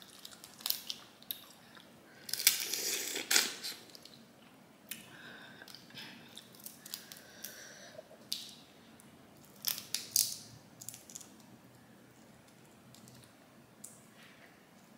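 Boiled crawfish being peeled by hand, with the shells cracking and tearing in short crackles and wet squishes. It is loudest about two and a half seconds in, then turns sparse and quiet after about eleven seconds.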